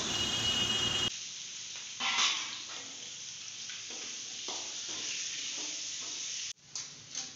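Chopped raw mango tipped into hot oil in a small karahi, sizzling loudly for about the first second, then more softly, with a brief louder spurt of sizzle about two seconds in. A couple of short clicks near the end.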